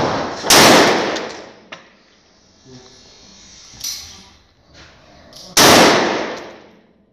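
Two single rifle shots from a Vz. 58 in 7.62×39 mm, one about half a second in and the next about five seconds later, each fading out over about a second.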